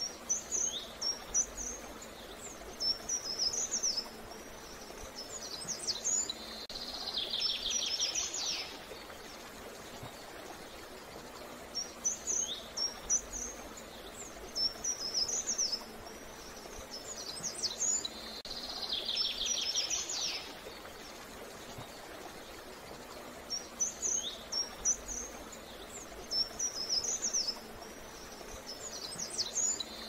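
A songbird singing the same phrase three times, about twelve seconds apart: several high chirping notes followed by a fast buzzy trill, over a steady outdoor background hiss.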